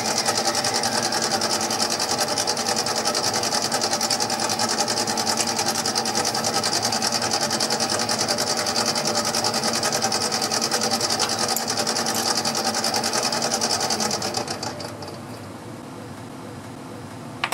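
Bench-top mini lathe running steadily with a fast, even mechanical rattle. About fourteen seconds in the sound drops to a much quieter run.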